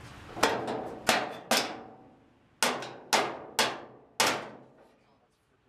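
Seven sharp knocks on the sheet metal of a car body as a new floor pan is worked into place, each ringing out briefly: three in quick succession, a short pause, then four more about half a second apart.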